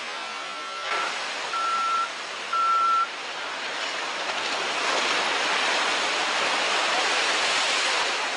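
Three short, high, single-pitched warning beeps in quick succession. Then a steady rushing noise swells from about four seconds in, heard at a ship launch as the hull goes down the slipway into the water.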